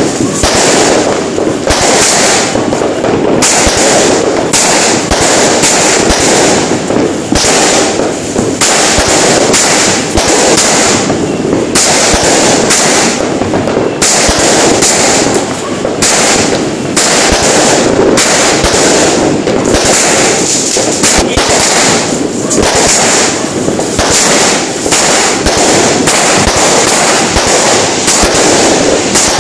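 Aerial fireworks going off in rapid succession: a dense, unbroken barrage of sharp bangs and crackles, loud throughout.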